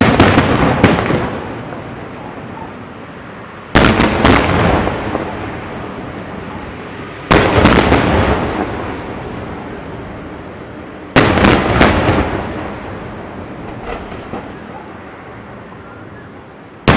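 Aerial fireworks shells bursting: clusters of three or four sharp bangs come about every four seconds, five times in all, each trailing off into a long fading rumble and crackle.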